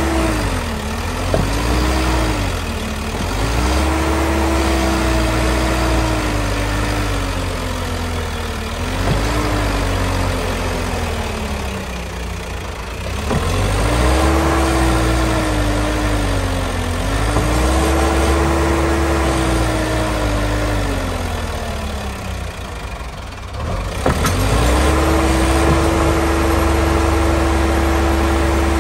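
Sonalika DI 60 RX tractor's diesel engine revving up and down again and again as it works to pull a loaded trolley through mud. Near the end it dips briefly, then holds at a steady high speed.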